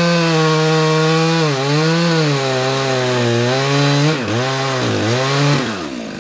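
Stihl MS 400 two-stroke chainsaw cutting through a red oak log at high revs. The engine note wavers and dips several times as the chain loads in the cut, then the revs fall away near the end.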